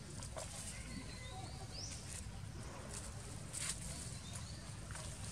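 Outdoor ambience: a bird gives a short rising call about two seconds in, with a few soft rustles and a steady low rumble underneath.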